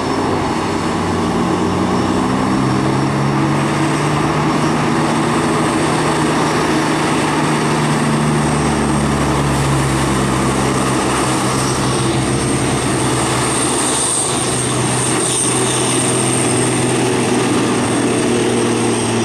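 Hino container truck's diesel engine labouring up a steep hill, its engine note sagging and rising slowly under heavy load.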